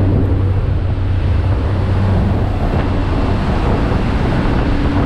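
Jump plane's engine drone mixed with wind rushing in through the open jump door, loud and steady.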